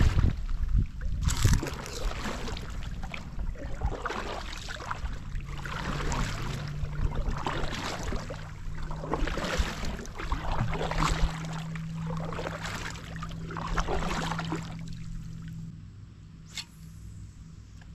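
Kayak paddling: a double-bladed paddle dipping and pulling through calm water, with a splashing swish roughly every second that stops about 15 seconds in. A single sharp click follows near the end.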